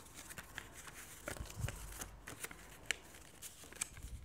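A sheet of paper being folded and creased by hand on a wooden table: irregular crisp crackles and clicks of the paper, with a couple of soft low thumps as the hands press it down.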